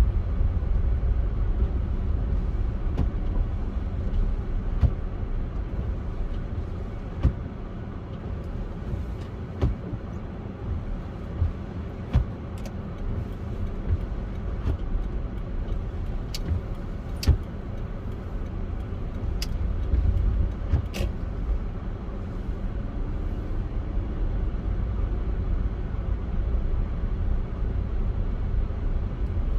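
Steady low outdoor rumble that swells twice, with a dozen or so sharp clicks scattered through the middle.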